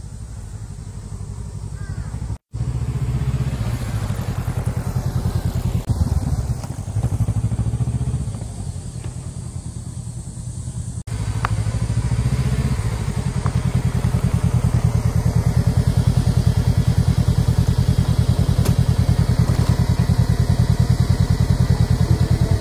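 Honda Rebel 500's parallel-twin engine running as the motorcycle is ridden, a steady pulsing beat. It gets louder and steadier from about twelve seconds in. The sound drops out for an instant about two and a half seconds in and again about eleven seconds in.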